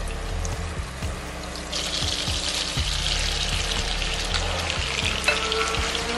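Seasoned raw chicken pieces going into hot oil and melted butter in a pan and frying, a loud sizzle that starts about two seconds in. A spatula stirs them, with a sharp click near the end.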